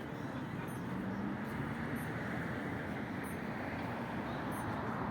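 Street traffic noise: a steady rush of a passing motor vehicle, growing a little louder about a second in.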